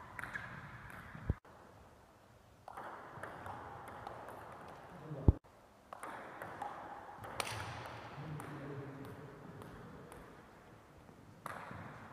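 Table tennis rally: a celluloid ball clicking off paddles and the table in irregular sharp ticks, echoing in a large hall. Two dull low thumps, about a second in and about five seconds in, each followed by a brief gap in the sound.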